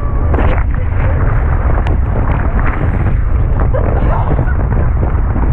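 Loud, steady rush of wind buffeting a GoPro's microphone and water spraying as an inflatable is towed at speed across the sea, with brief bits of the riders' shrieks and laughter in it.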